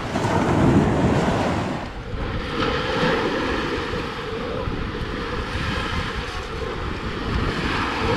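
Small waves washing over the shallows at the shoreline, with wind buffeting the microphone. The sound dips and changes in tone about two seconds in, then goes on as a steady rush.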